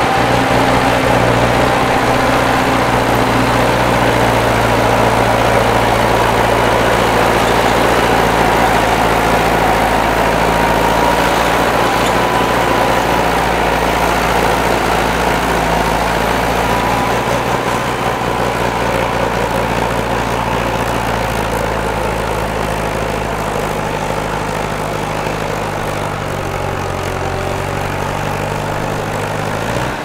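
Small crawler bulldozer's diesel engine running steadily, with a steady high whine over the engine note. It eases slightly in loudness toward the end, and the pitch briefly rises just before the end.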